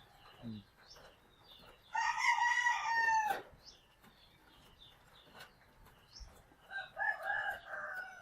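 Rooster crowing: one long crow about two seconds in, then another broken call near the end, with faint small chirps between.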